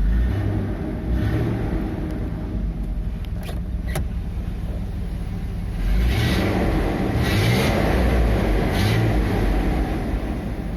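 Chevrolet Blazer V6 engine running at a fast idle just after a cold start, with two short clicks about three and a half seconds in and a louder stretch from about six to nine seconds. The engine is on a 20W-50 fill topped up with a litre of thinner oil, which the owner says has stopped the morning tapping from the camshaft.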